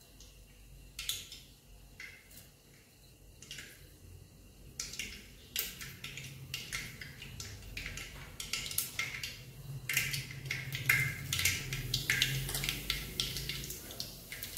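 Mustard and cumin seeds popping and crackling in hot peanut oil in an aluminium pressure cooker as the tempering starts. A few scattered pops come first, then from about five seconds in the crackling grows dense and quickens.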